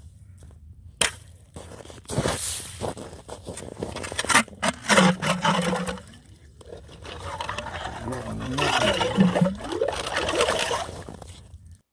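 Ice being worked at a fishing hole in river ice: irregular crunching and scraping of ice, with water and slush sloshing, in two long spells.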